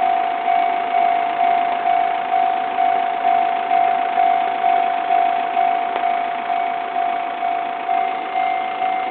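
Japanese railway level-crossing alarm ringing: an electronic bell tone striking about twice a second, each ding fading before the next. It is the warning that the crossing is closed for a train.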